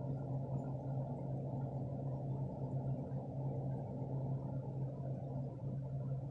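A steady low hum with a muffled rumbling noise under it, unchanging throughout.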